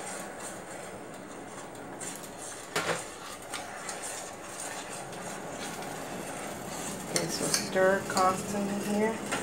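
Metal spoon stirring and scraping around a stainless steel saucepan of butter, sugar and water heating on the stove, with scattered clinks of spoon against pot, sharpest about three seconds in and several more near the end. The sugar glaze is being stirred constantly while the sugar dissolves.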